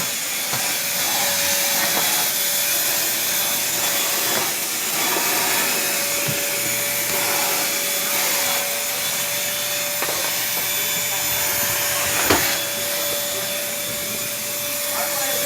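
Vacuum cleaner running steadily with a constant whine as it is pushed over the floor picking up scraps of paper; a single knock about twelve seconds in.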